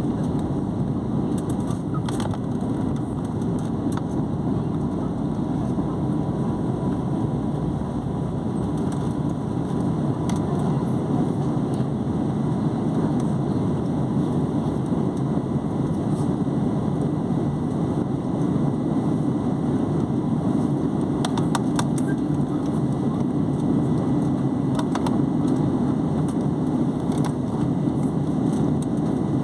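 Airliner jet engines heard as a steady low rumble, growing slightly louder about ten seconds in, as the aircraft takes off.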